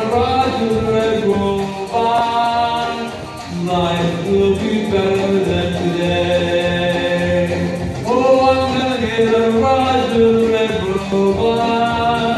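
A song: a voice singing long held notes over backing music.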